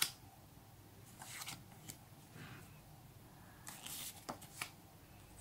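Paper stickers slid off a hand-held stack one by one: faint, short rustles and flicks of paper, about one a second.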